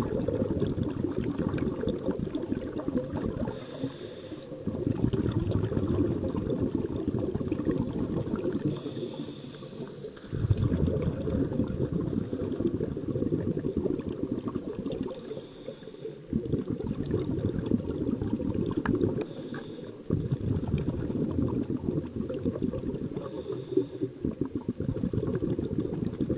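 Scuba diver breathing through a regulator, heard underwater: about a second of hissing inhale, then several seconds of exhaled bubbles, repeating about every five seconds, five breaths in all.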